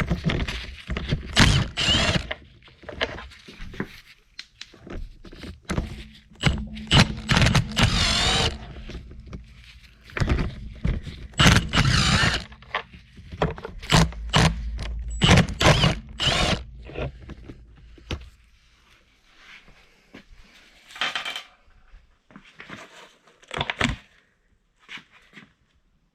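Quarter-inch impact driver hammering in repeated bursts of a second or more as it runs bolts off a Subaru EJ20 engine, with metal clinks and knocks of parts being handled between bursts. The bursts stop about two thirds of the way through, leaving only lighter clinks.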